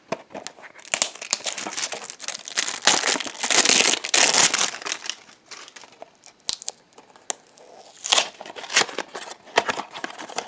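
Packaging being crinkled and torn open, a dense crackling rustle that is loudest a few seconds in, then breaks into scattered sharp crackles and clicks. This is the unwrapping of a Funko Mystery Minis blind box.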